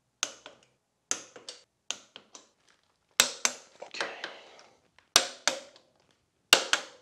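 A socket wrench clicking sharply in groups of two or three, with a slight metallic ring, as the motorcycle's rear shock and final drive bolts are tightened and torqued.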